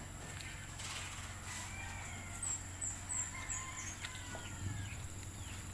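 A rooster crowing faintly, with a few short high bird chirps partway through and a steady high whine underneath.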